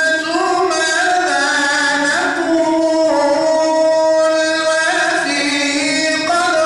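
A man singing an Arabic ilahi (Islamic devotional hymn) solo and unaccompanied into a handheld microphone. He sings an ornamented, wavering melody and holds one long steady note through the middle.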